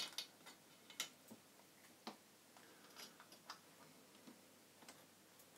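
Faint, scattered clicks and light taps of small metal parts being handled: the loose power transistors and heatsink of an opened amplifier. The clearest come about once a second.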